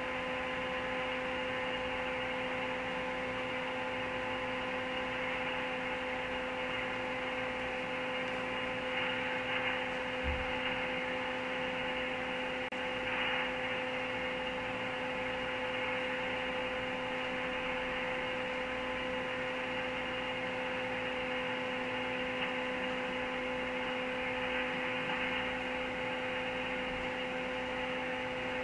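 Radio transceiver's speaker giving a steady hiss of static with a hum through it: an open channel with no station answering the call.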